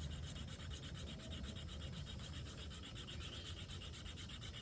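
Hand-drill friction fire: a wooden spindle spun back and forth between the palms, grinding in the notch of a wooden fireboard with a steady dry rubbing. The wood is heating to make smoke on the way to an ember.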